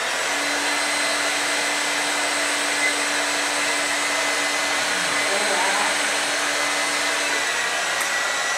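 Hand-held hair dryer switched on and blowing steadily: a rush of air with a high steady whine from its fan, spinning up just at the start.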